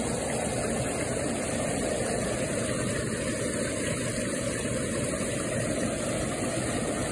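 Steady rush of water flowing fast through the stone headrace channel of a watermill, past an iron grate and wooden sluice boards.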